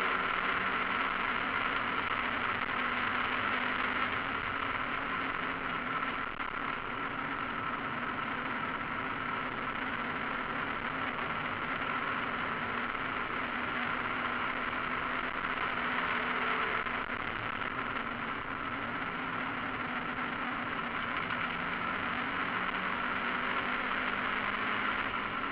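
Mazda MX-5 race car's four-cylinder engine running under racing load, heard from inside the stripped cabin together with wind and road noise. The engine note shifts a little about two-thirds of the way through.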